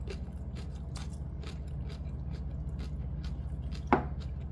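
Close, crunchy chewing of food in short repeated clicks over a steady low hum. A single louder knock about four seconds in, as a small glass sauce bottle is set down on the wooden table.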